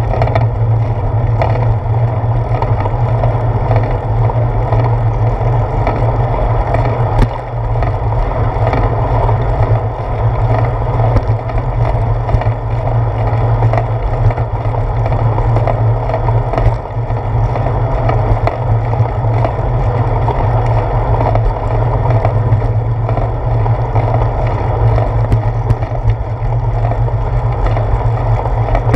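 Bicycle tyres rolling on a concrete sidewalk, heard as a steady rumble through a handlebar-mounted camera along with wind on its microphone. A few small knocks come from bumps and joints in the path.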